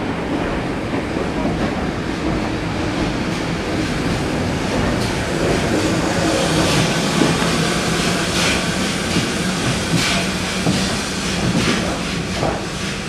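Steam locomotive at a station platform, GWR Hall class 4-6-0 No. 4953 'Pitchford Hall', giving off irregular bursts of hissing steam over a steady low drone.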